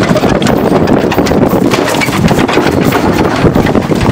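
A pair of horses pulling a carriage over a dirt track: hooves clopping and the carriage rattling in a dense, continuous clatter, with wind buffeting the microphone.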